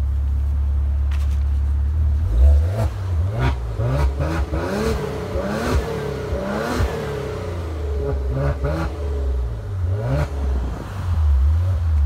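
Maserati Levante's twin-turbo V6 idling steadily. About two seconds in it is blipped into a run of quick revs, its pitch rising and falling again and again; the first rev is the loudest.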